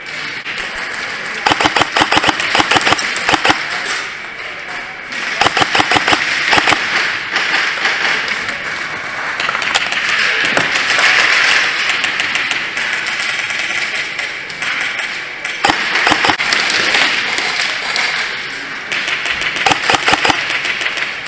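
Airsoft guns firing in several rapid-fire bursts of fast, evenly spaced shots, each burst a second or two long, over a steady hiss of background noise.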